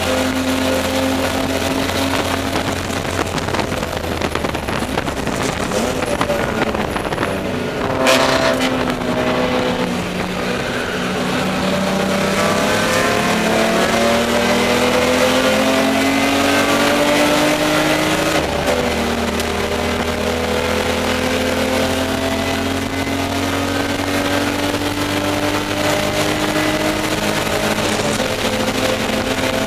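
Inside the cabin of a BMW E30 race car, its straight-six engine runs under racing load. About eight seconds in there is a sharp knock and the revs fall. They then climb steadily for about ten seconds, drop suddenly at an upshift, and climb again.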